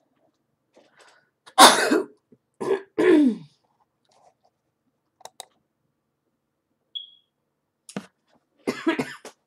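A person coughing and clearing their throat: one loud cough about a second and a half in, then two shorter ones, the last falling in pitch. A few faint clicks follow.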